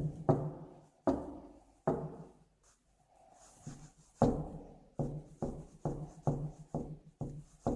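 Repeated knocking on a door, each blow ringing on briefly. A few knocks, a pause of about two seconds, then a steady run of about two knocks a second.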